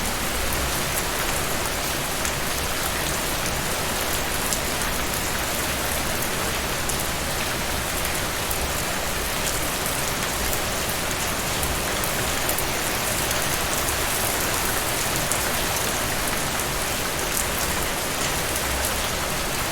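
Steady rain falling, an even hiss with fine drop ticks.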